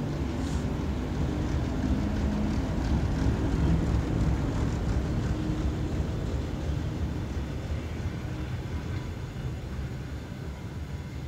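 A passenger train passing close by, hauled by a TEP70 diesel locomotive. The locomotive's diesel engine drones as it goes by, and then the coaches roll past with a steady rumble of wheels on rails that eases in the last few seconds.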